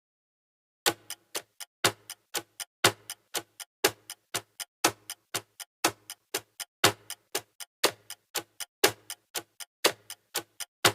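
Ticking clock sound effect, about four ticks a second with a louder tick on each second, starting about a second in: a quiz timer counting down the time to answer.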